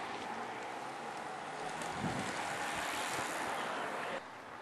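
Wind rushing over the microphone with road noise from a moving vehicle, a steady rush that cuts off abruptly near the end to quieter open air.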